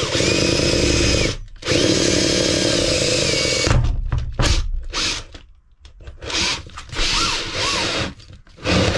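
Power drill running in bursts, its motor whine rising and dipping with the trigger and the load. It stops briefly about a second in and again near the middle, then runs on in shorter spurts.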